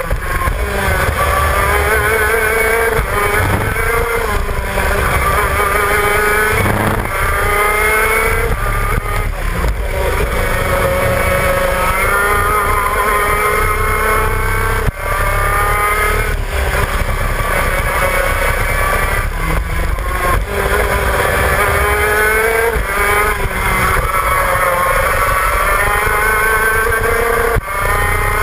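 Shifter kart's 125cc two-stroke engine revving hard, its note climbing in pitch and then dropping sharply again and again as it is run up through the gears and shifted down or lifted for corners. A low wind rumble on the on-board microphone runs underneath.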